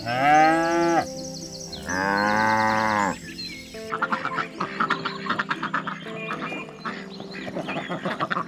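Two long, drawn-out animal calls about a second each, then a rapid chattering run of many short calls, over background music.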